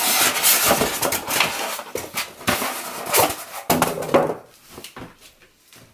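Styrofoam packing blocks being pulled out of a cardboard box, scraping and knocking against the cardboard and each other. The handling dies down after about four seconds.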